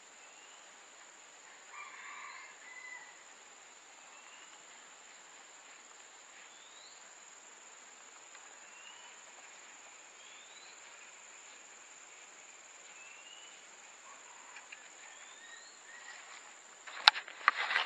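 Steady high-pitched insect drone of tropical forest, with a bird repeating short rising chirps about every two seconds. Near the end come a few sharp clicks and rustling.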